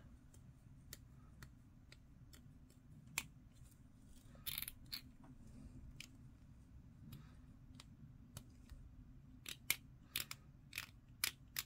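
Faint, irregular clicks and taps of small hard-plastic miniature parts being handled and pressed together between the fingers, with a run of sharper clicks near the end.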